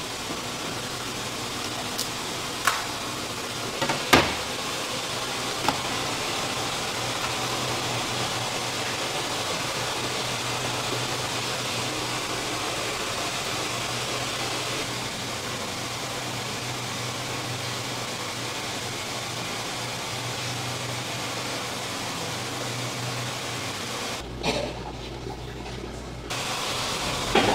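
Steady rushing noise with a low hum underneath, with a few sharp knocks of a knife against a wooden cutting board between about two and six seconds in.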